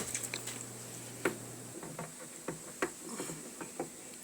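Scattered light metallic clicks and taps, irregularly spaced: the Hummer H3 transfer case's drive chain being worked onto its sprockets by hand.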